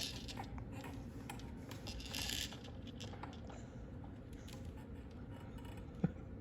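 A toy being handled by a baby: faint light taps and scratches, a short hiss about two seconds in, and one sharp click near the end.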